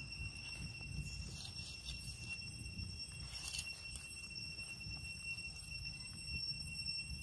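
Forest insects giving a steady, unbroken high-pitched drone over a low rumble, with faint rustling about a second and a half and three and a half seconds in.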